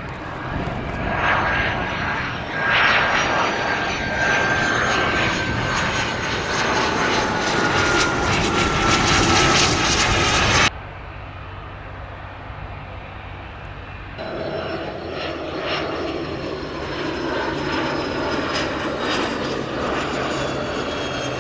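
Turbofan engines of Cessna Citation business jets on approach: a steady jet rush with high whistling tones that slowly fall in pitch. About halfway through the sound cuts off suddenly to a few seconds of quieter low hum, then a second Citation's whine comes in.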